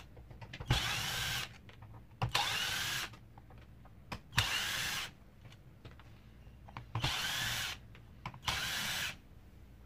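Electric screwdriver with a T10 Torx bit spinning in five short bursts, each under a second, with small clicks between them, as it backs out the small screws of a vacuum cleaner's nozzle head.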